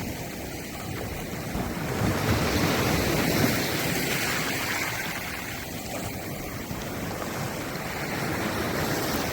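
Sea waves surging and washing in, swelling louder about two seconds in, with wind buffeting the microphone.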